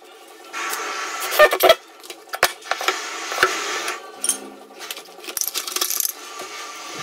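Tools and plastic parts being handled on a concrete floor: rustling with a few sharp knocks and clatters, then the crinkling of a plastic bag near the end.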